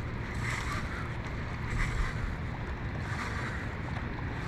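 Wind buffeting the microphone over water lapping against a boat, with a few soft swells of splashing.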